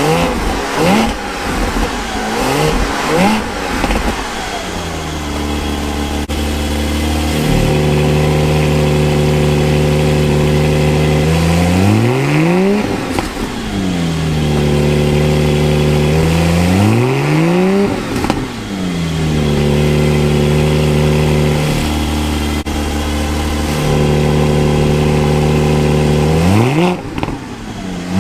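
Porsche 718 Spyder's 4.0-litre flat-six on its stock exhaust, blipped a few times and then revved and held at steady high revs for several seconds at a time. Between holds the revs drop away and sweep back up.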